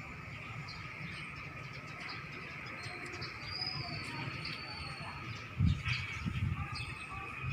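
Birds chirping, with one longer whistled note in the middle, over a steady high insect buzz. A few loud, low rumbling bumps come in about two-thirds of the way through.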